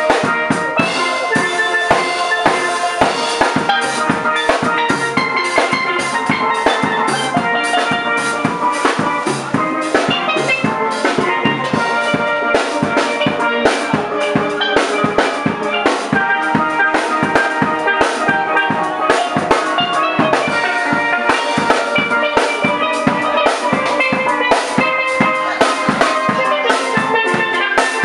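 Steel pan (steel drum) music played over a steady drum-kit beat.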